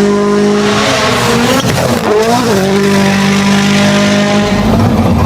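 Turbocharged four-cylinder WRC rally car engine held at high revs, flat out, with a brief dip in pitch at a gear change about a second in and again about two seconds in. Near the end the high note gives way to a lower rumble.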